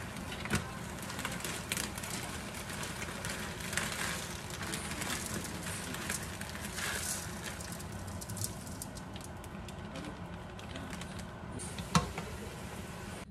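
Homemade egg noodles sizzling and crackling in a hot nonstick wok as they go into the liquid and are tossed, with small clicks throughout. A wooden spatula knocks sharply against the pan near the end.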